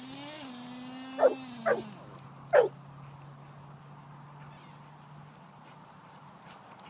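Dog barking three times, sharp and short, over a steady whine that stops about two seconds in, leaving a fainter low hum.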